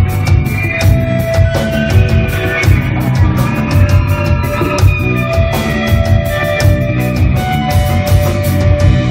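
Live instrumental math rock from an electric guitar, bass guitar and drum kit playing loud together: busy drumming with cymbals, several hits a second, under a heavy bass line and held guitar notes.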